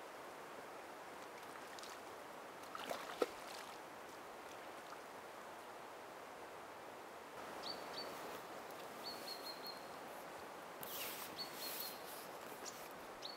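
Steady rush of a small forest stream running over stones, with a brief splash and click of handling at the water's edge about three seconds in. In the second half come a few short high chirps.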